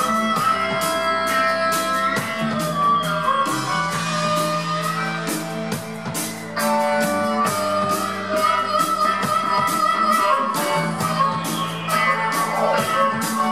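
Live rock band playing: electric guitar, bass and keyboards over a steady drum beat, with a harmonica played into a microphone carrying sustained notes on top. A high tone falls in pitch over the first few seconds.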